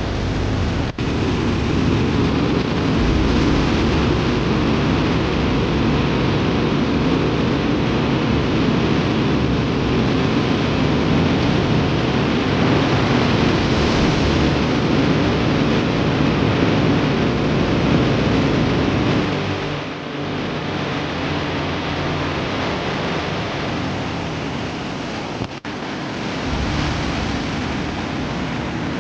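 A river in flood rushing past: a loud, steady rush of water. The sound changes abruptly about a second in, near twenty seconds and near twenty-six seconds.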